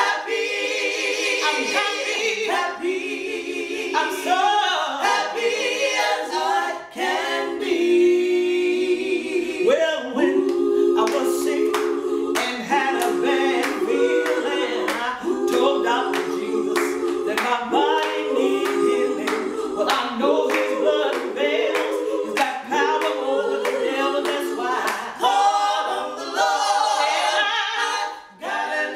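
Female gospel quartet singing a cappella in close harmony, with hand claps keeping time through most of it.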